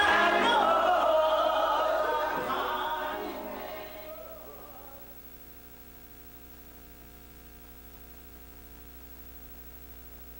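Choir singing, fading out over the first four or five seconds. What is left is a faint, steady electrical hum.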